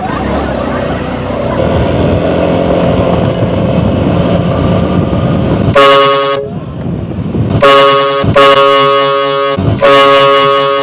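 Street traffic and engine noise, then a loud bus horn fitted to a motorcycle blasts four times over the second half: one short toot, then three longer blasts in close succession.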